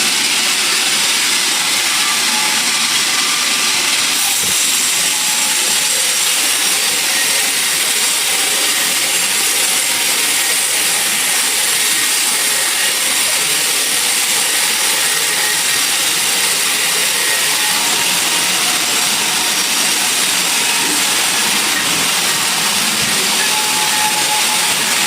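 Sawmill machinery running steadily: a loud, even hiss with no breaks or changes.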